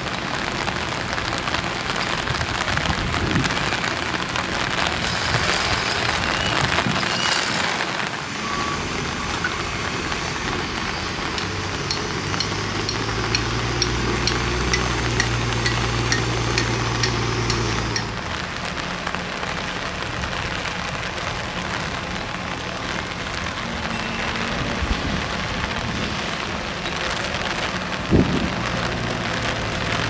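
Steady rain falling and pattering on surfaces. A machine's low, steady hum joins for several seconds in the middle, and there is one sharp knock near the end.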